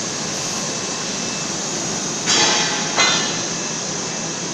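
Steady machinery noise of a welding gantry in a fabrication shop. About two seconds in there is a short, loud hissing burst, and a sharp knock follows at about three seconds.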